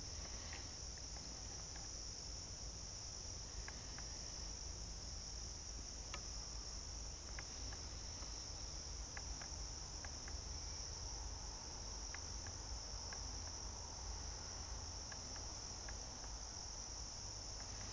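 A steady, high-pitched chorus of insects trilling in summer woodland, with a few faint ticks scattered through it.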